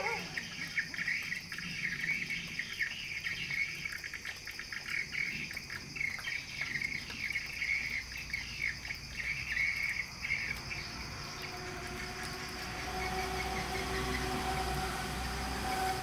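Swiftlet calls: dense, rapid high chirping that dies away about ten seconds in. A steady low hum with two faint held tones then takes over.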